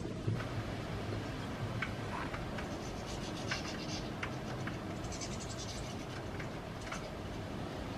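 European goldfinches at a wire-mesh seed feeder: scattered sharp clicks and scratches of beaks and feet on the mesh, with two short bursts of high twittering, over steady low background noise.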